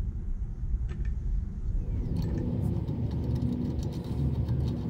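Steady low rumble of a running motor vehicle, growing fuller from about two seconds in, with a few light metal clicks as a crank puller is threaded into a bicycle crank arm.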